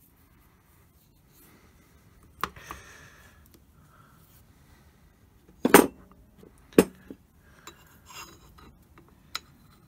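Metal parts of a Holbrook lathe apron knocking and clinking as they are handled and fitted by hand: a sharp knock about two and a half seconds in, two loud clanks about a second apart in the middle, then a few light clicks.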